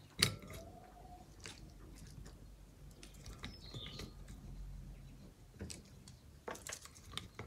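Raw onion slices being pulled apart into rings by hand and laid in a glass baking dish: faint crisp crunches and light clicks, the sharpest click just after the start and a few more near the end.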